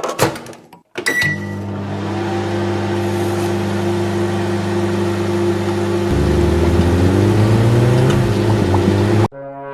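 A short click and a brief high beep about a second in, then a steady low electrical hum whose pitch rises over its last few seconds before it cuts off suddenly.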